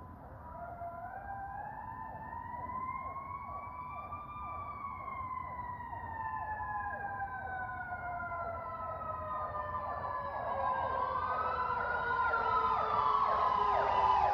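Fire rescue truck sirens approaching and growing steadily louder: a slow wail that rises and then falls in pitch, layered with a rapid repeating yelp.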